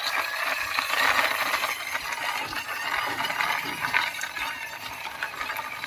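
Plastic toy school bus pushed by hand along a rough, mossy stone wall: its plastic wheels rolling and scraping over the stone in a steady rattling scrape with many small ticks.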